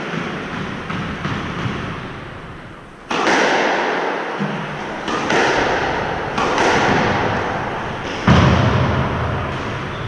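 Squash ball struck by rackets and hitting the court walls during a rally: several sharp hits a second or two apart, each followed by a long echo that dies away slowly.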